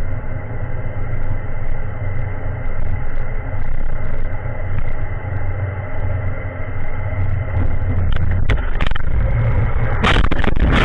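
Steady low drone of engine, tyre and wind noise inside an Audi's cabin at about 190 km/h. In the last couple of seconds come a series of loud bangs and crashes, the car striking the road railing at speed.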